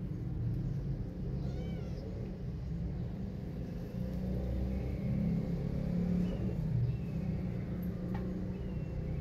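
A kitten mewing faintly a few times, the clearest mew about two seconds in, over a steady low rumble.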